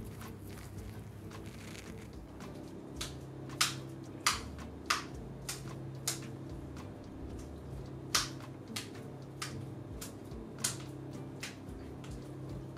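A minced beef cutlet being slapped from palm to palm to pack it into shape: a slap every half-second or so, in two runs, the first starting about three seconds in and the second around eight seconds.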